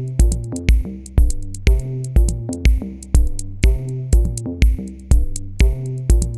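Background electronic music with a steady drum-machine beat, about two beats a second, over sustained synthesizer notes.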